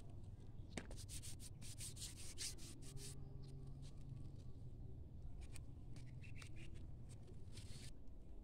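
Chili plant foliage rustling and crackling as peppers are picked by hand, in two spells of quick crackles, one starting about a second in and another in the second half, over a low steady rumble.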